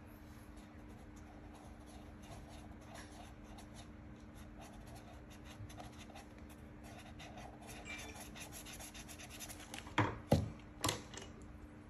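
Marker pen scratching in short strokes on paper wrapped around a plastic cup, drawing tiger stripes. About ten seconds in come three sharp, louder knocks as the cup is handled.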